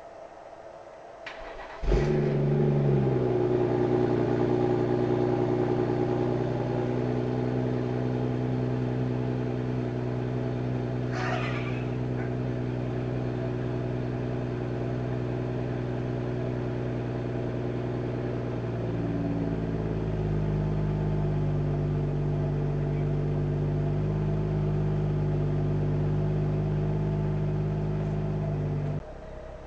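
2018 BMW M240i's 3.0-litre turbocharged straight-six starting almost at once about two seconds in, with its positive battery-cable fuse bridged by a clamp, then running at a steady idle. About nineteen seconds in the engine note changes, a brief high sound comes about eleven seconds in, and the engine cuts off suddenly near the end.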